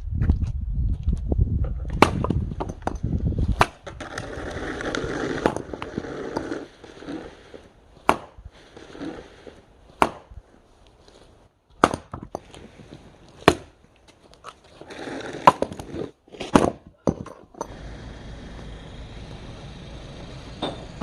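A series of sharp, loud knocks or impacts, about eight of them at intervals of one and a half to two seconds, after a low rumble at the start; a steady low hum follows near the end.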